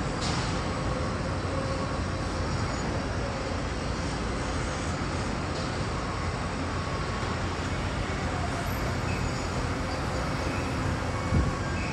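Steady city street noise: an even rumble and roar of traffic, with a single sharp knock near the end.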